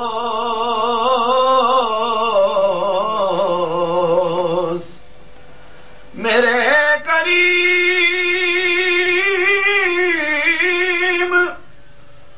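A man's voice singing an Urdu naat unaccompanied, drawing out two long melismatic vowels with a wavering vibrato, separated by a breath pause about five seconds in.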